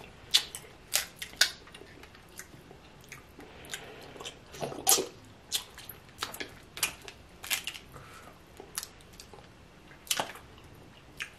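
Close-miked eating sounds of snow crab legs in sauce: wet chewing and smacking, with sharp, irregular clicks and snaps through the whole stretch.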